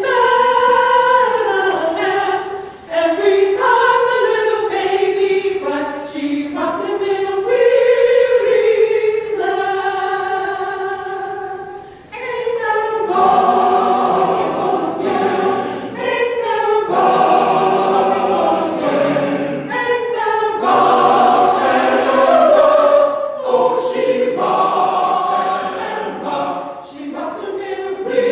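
Church choir singing a setting of the Hail Mary. For the first twelve seconds the texture is thinner and higher; after a short breath, fuller chords with lower voices come in about thirteen seconds in.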